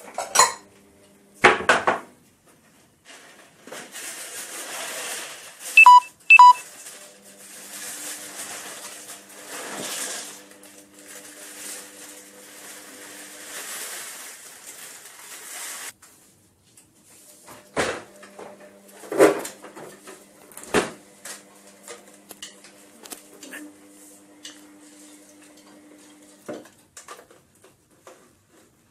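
Kitchen handling sounds: a cupboard door knocking, a plastic bread bag rustling, and two short electronic beeps. Later come scattered knocks and clinks of a bowl and other kitchen items, over a faint steady hum.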